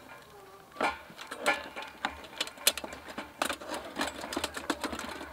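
Metal camping cookware and a lantern clinking against each other and the wooden crate as they are packed away: a quick, irregular run of sharp clinks and knocks that starts about a second in.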